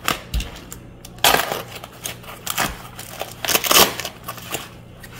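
Plastic packaging wrap and packing tape being cut open with a utility knife and pulled apart: irregular crinkling and crackling rustles, loudest about a second in and again near the end.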